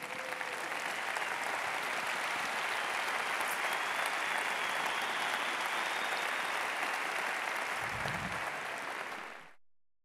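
Large arena audience applauding steadily, fading out about nine seconds in. A brief low thump near the end.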